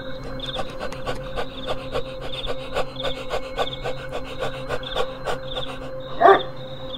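Crickets chirping at a steady pace, with a rhythmic rasping scrape of about three strokes a second on top. A dog gives one short yelp about six seconds in.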